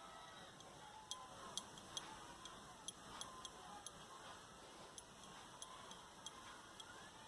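Near silence broken by faint, sharp, irregular ticks, about two a second.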